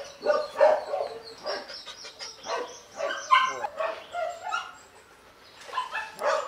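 Dog barking in a run of short, pitched barks and yelps, with a brief pause about five seconds in before the barking starts again.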